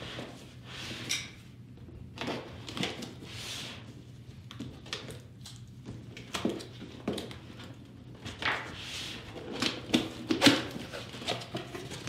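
A cardboard box being handled and opened: rustling and scraping of the cardboard, with several sharp knocks in the second half and the flaps pulled open near the end.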